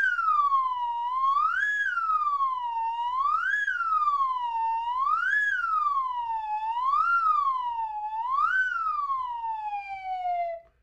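Siren sound effect wailing steadily up and down, about one rise and fall every two seconds, then winding down and cutting off near the end.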